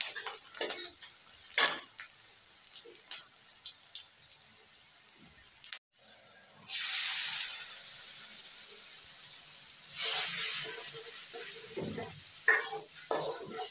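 Food frying in oil in a steel kadhai, with a steel ladle stirring and scraping against the pan. About seven seconds in the sizzling jumps sharply, and it swells again about ten seconds in, as a wet masala goes into the hot pan.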